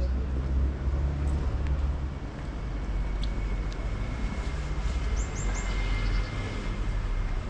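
City street ambience: a steady low rumble of road traffic, with a faint steady whine from about two seconds in. A bird gives three quick falling chirps about five seconds in.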